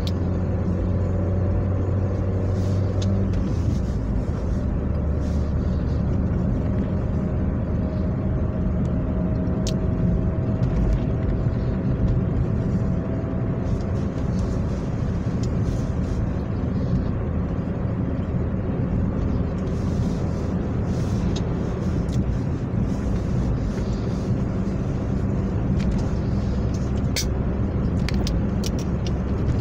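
A car driving at steady speed on an asphalt road, heard from inside the cabin: a steady engine hum and tyre rumble. The engine note shifts about three seconds in, and a few light clicks come near the end.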